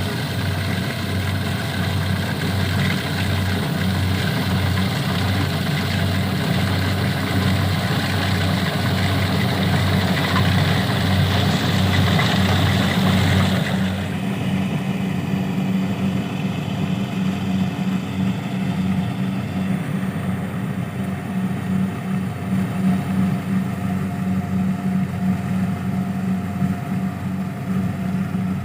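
Small engine of a rice harvesting machine running steadily with a pulsing low hum. A rushing hiss over the engine cuts off suddenly about halfway through, leaving the engine alone.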